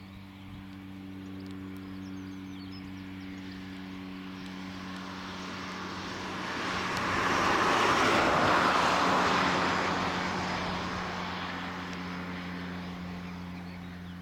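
A BAe 125 twin-turbofan business jet taxiing past: its engine noise builds, is loudest about eight seconds in as it passes closest, then fades away. A steady low hum runs underneath.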